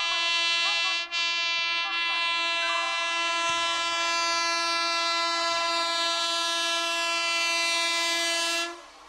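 An Indian Railways WAP-4 electric locomotive's horn held in one long steady blast, with a momentary break about a second in, cutting off near the end.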